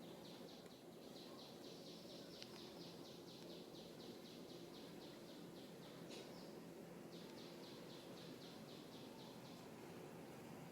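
A bird calling faintly: a rapid run of short high chirps, about four a second, then a second shorter run starting about seven seconds in, over steady low background noise.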